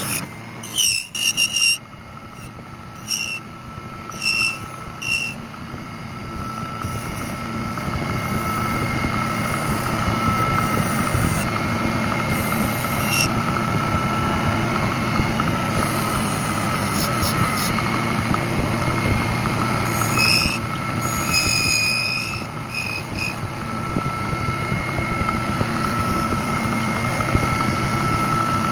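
Woodworking machinery running steadily, with a constant high whine over a noisy hum that grows louder over the first several seconds. A few short, high chirps come in the first few seconds.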